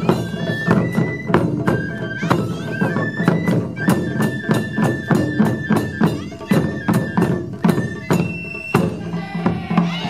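Shinobue bamboo flutes playing a melody of held notes in unison over steady taiko drum strikes. The flutes stop about nine seconds in while the drums play on.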